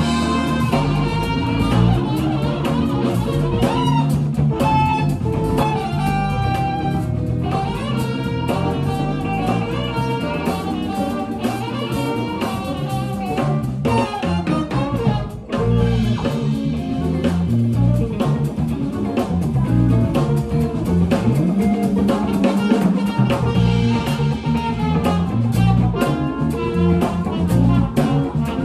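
Live band music: an acoustic guitar playing chords and melodic lines over a drum kit, with a busy low end underneath.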